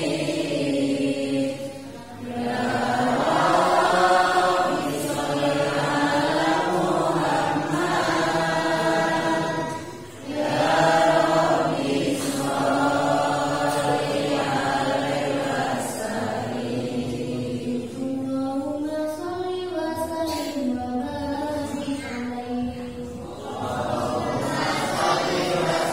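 A group of girls' voices chanting maulid verses in praise of the Prophet in unison through microphones, without instruments, in long melodic phrases. The chanting breaks off briefly about two seconds in and again about ten seconds in.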